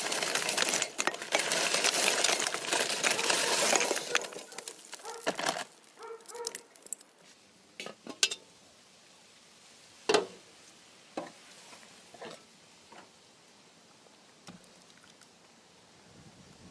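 Kitchen dishes and utensils being handled: about four seconds of continuous rough scraping or stirring noise, then a series of separate clinks and knocks, the sharpest about ten seconds in.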